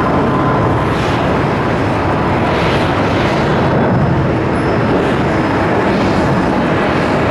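Jet engines of a Boeing airliner running, a loud steady rumble with swells of higher hiss coming and going every second or two.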